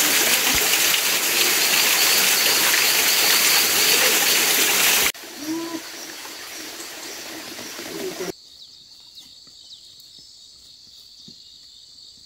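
Waterfall rushing loudly and steadily, cut off suddenly about five seconds in. Quieter forest ambience with a few short calls follows, then, after another cut, faint outdoor ambience with a steady high-pitched drone.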